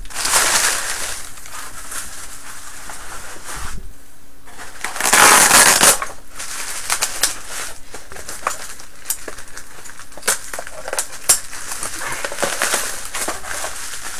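Packaging being handled and pulled out of a box: crinkling and rustling of wrapping, louder for about a second halfway through, with scattered small clicks and knocks.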